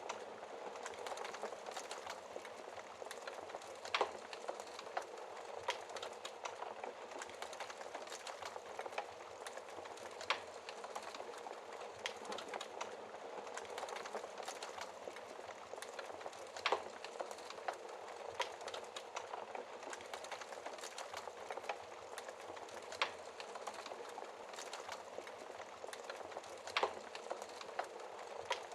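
Wood fire crackling steadily in a fireplace, with a sharp, louder pop every few seconds.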